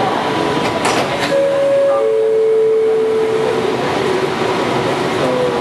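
Bombardier ART train doors sliding open at a station stop, over the car's steady background noise. A two-note falling chime sounds as the doors open, each note held for over a second.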